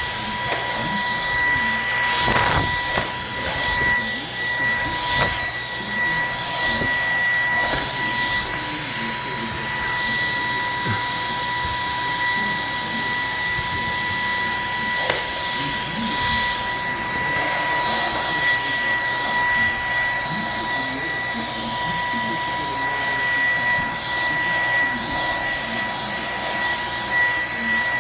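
Bissell CleanView 3789 cordless stick vacuum running steadily as it picks up dog hair from carpet, with a steady high whine over its airflow noise.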